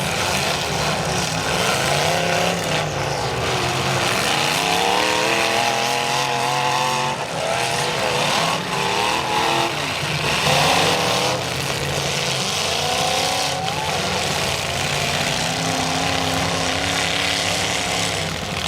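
Demolition derby engines revving up and down, several at once, over a steady rumble.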